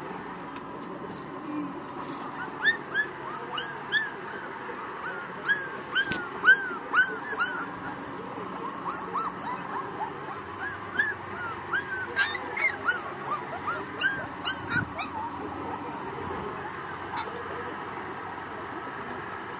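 Month-old Pakistani Bully puppies whimpering: many short, high squeaks that rise and fall, coming in quick runs through most of the stretch and dying away near the end.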